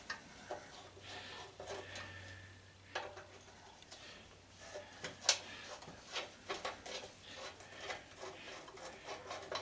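Scattered small clicks and taps of hand tools and metal parts while a belt/disc sander is taken apart by hand, with one sharper click about five seconds in. A faint low hum runs underneath.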